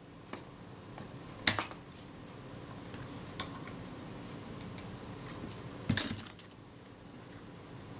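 Small metallic clicks and scrapes of crimp lug pliers gripping and twisting the shutter release button of a Kodak Retina II camera to break it loose, with two sharper clicks, one about a second and a half in and one about six seconds in.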